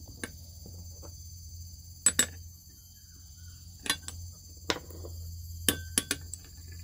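Metal parts of a brush cutter's blade head clinking as the washer and cover cup are fitted back onto the steel blade by hand: a handful of sharp, separate clicks spread across a few seconds.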